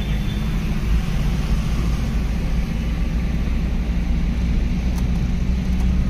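Steady engine and road hum inside a moving car's cabin.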